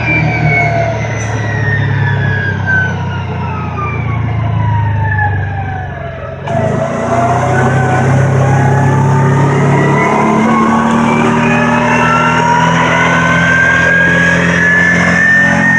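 Kawasaki Teryx side-by-side running on the move. Its engine and drivetrain whine falls steadily in pitch as it slows for about six seconds, then rises again as it speeds back up, with a hiss joining in as it pulls away.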